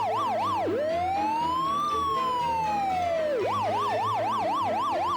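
Police car siren wailing, switching between a fast warble of about four sweeps a second and one slow rise and fall, then back to the fast warble about three and a half seconds in.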